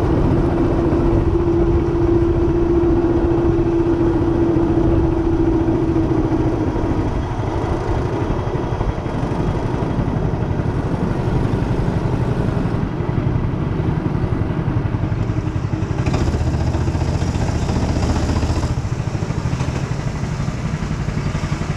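Two-seater go-kart's engine running at a steady note that drops away about seven seconds in as the kart slows, leaving a lower rumble of the engine and rolling kart.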